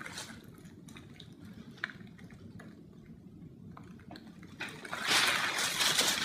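Crumpled gift wrapping and tissue paper crinkling and rustling as a cat rummages through it: scattered light crinkles at first, then a louder, continuous rustle for the last part.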